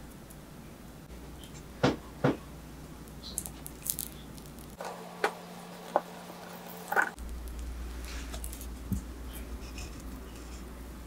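Kitchen knife and hands working a soft, steamed, peeled sweet potato on a wooden cutting board: a few short, sharp knocks and taps, the two loudest about two seconds in, with a low hum underneath.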